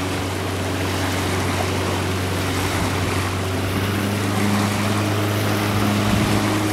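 Strong wind rushing over the microphone, with the steady low hum of idling engines underneath; a second, higher engine tone joins about halfway through.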